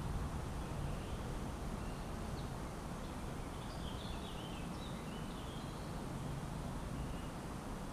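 Spring woodland ambience: a steady low rumble of traffic, with faint bird chirps and a short flurry of calls about halfway through.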